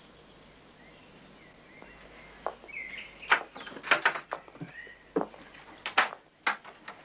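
Faint birdsong chirps, then from about two and a half seconds in a wooden wardrobe is opened and rummaged through: a quick string of sharp knocks, clacks and rustles.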